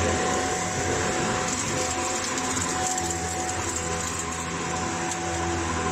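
Shark NZ801UKT upright vacuum cleaner running steadily, a constant whirr with a thin steady whine on top.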